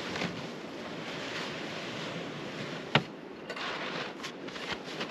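Gusting wind rushing over open lake ice and buffeting the microphone, with one sharp knock about three seconds in, followed by footsteps crunching in snow.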